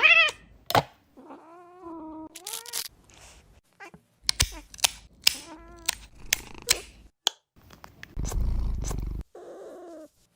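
A cat meowing and yowling in several wavering calls, one of them long and drawn out, with sharp clicks and knocks between the calls and a low rumble for about a second near the end.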